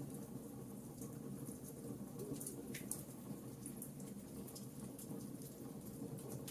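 Wood fire in a fireplace crackling: many small sharp pops and snaps, irregularly spaced, over a steady low rumble.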